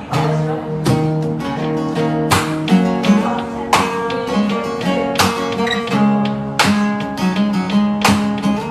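Background music: acoustic guitar strummed in an even rhythm, a chord every second or so.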